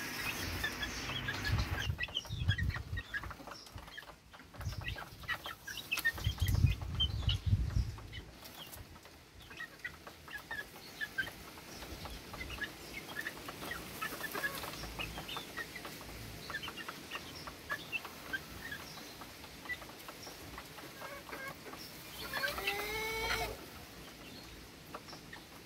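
Month-old Sweater gamefowl chicks chirping and clucking in short scattered calls. Low rumbles come twice in the first eight seconds, and a louder run of quick calls comes near the end.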